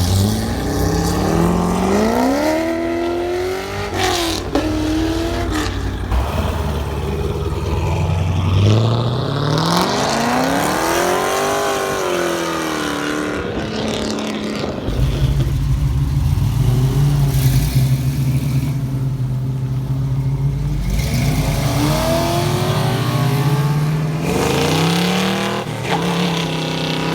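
American V8 muscle-car engines revving and idling: short throttle blips early on, one long rev that climbs and falls back in the middle, a steady idle, then another rev near the end.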